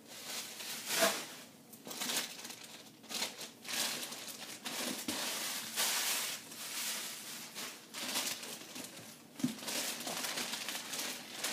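Packing material and plastic wrapping crinkling and rustling in irregular bursts as hands rummage through a cardboard box, with a few light knocks.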